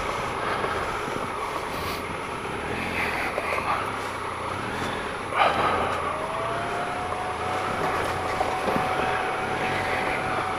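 Triumph Explorer 1215cc three-cylinder motorcycle engine running at low speed over mud. There is a brief rushing swish about five seconds in, after which a steady whine holds.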